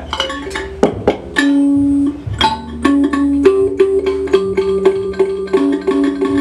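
Home-built electric kalimba (thumb piano) played through a speaker, its plucked metal tines ringing with a feedback effect on. After a few separate notes, the notes repeat and pile up in a dense run from about halfway in.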